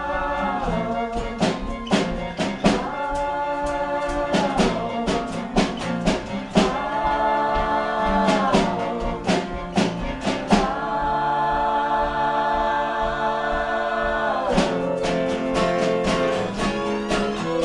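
Live acoustic folk band: acoustic guitars strumming and a violin under voices singing together. The strumming thins out for a few seconds in the middle while a long note is held, then picks up again.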